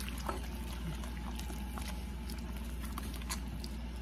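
Hands mixing freshly watered masa dough in a plastic bowl: faint, soft squishing with a few light taps, over a steady low hum.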